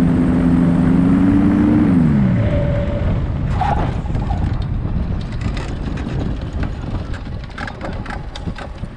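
Paramotor engine running steadily, rising slightly and then spooling down and stopping about two seconds in as it is throttled off for the landing. A rushing noise with scattered clicks and knocks follows.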